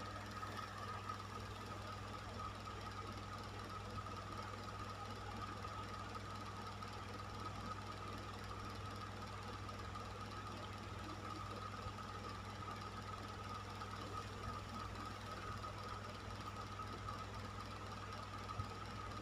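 Electric fan running steadily: an even rush of air with a low hum and a thin steady whine over it.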